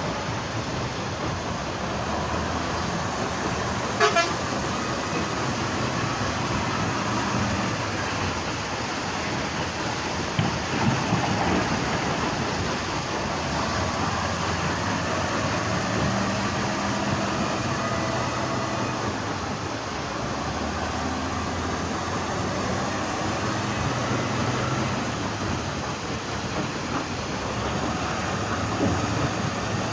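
Heavy diesel construction machinery running steadily, with a sharp knock about four seconds in and a few smaller knocks a few seconds later.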